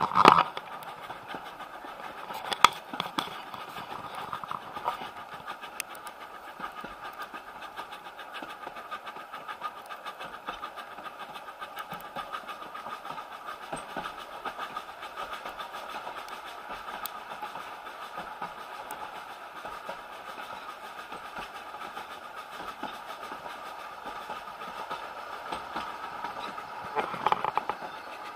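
Isle of Man Steam Railway 3 ft narrow-gauge carriage running along the line, heard from inside the compartment: a steady rumble of wheels on rail with scattered clicks and knocks. Two sharp knocks stand out at the start and about two and a half seconds in, and the noise swells for a moment near the end.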